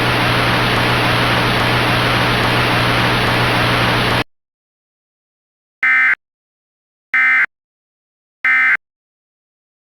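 Steady radio-static hiss with a low hum that cuts off abruptly about four seconds in, followed by three short identical digital data bursts about 1.3 s apart: the Emergency Alert System's SAME end-of-message tones, which signal that the alert is over.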